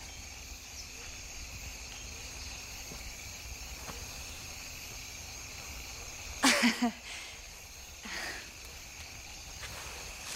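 Steady chirring of a night insect chorus, crickets or similar. About six and a half seconds in, a short, loud pitched sound comes in three quick pulses, with a fainter one shortly after.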